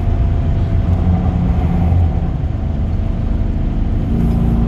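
Chevy Silverado's LS V8 running hard at high revs under way, its note easing off about two seconds in and picking up again near the end. The owner says the 200,000-mile engine builds no oil pressure at idle and the lifters might be bad.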